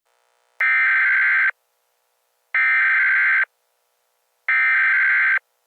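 Emergency Alert System SAME header: three identical buzzy data bursts of about a second each, a second apart, which mark the start of an emergency alert broadcast.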